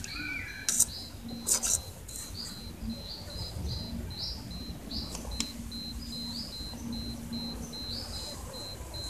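An insect chirping in a fast, even pulse, with a low hum that comes and goes. A few sharp clicks and rustles in the first two seconds are the loudest sounds.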